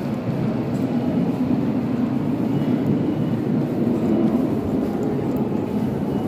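Train running, a steady low rumble that swells slightly midway.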